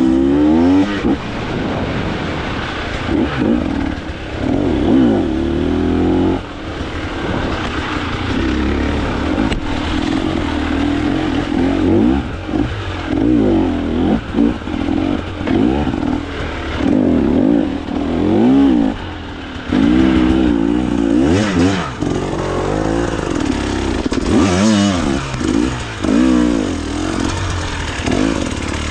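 Enduro dirt bike engine revving up and dropping back again and again as it is worked over a rocky riverbed, with short lulls between throttle bursts.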